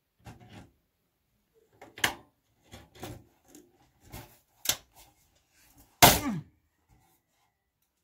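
Needle-nose pliers clicking and knocking against metal parts inside a steel desktop computer case, a series of separate sharp knocks about a second apart. The loudest knock comes about six seconds in, with a short falling tone after it.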